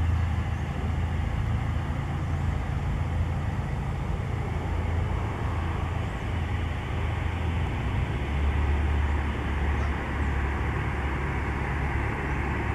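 Steady low engine rumble with an even hiss above it, the low rumble shifting slightly lower and stronger about eight seconds in.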